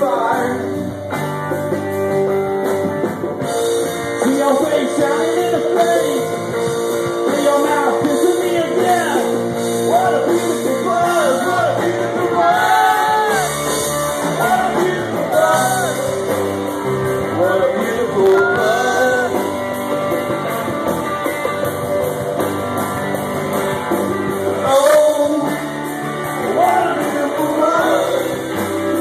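Live rock band playing: electric guitars, bass guitar and drum kit, with sung vocals.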